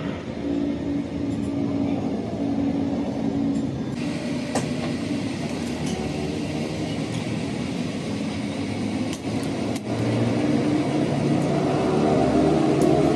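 A steady low mechanical hum, like a running engine, with a few light clicks.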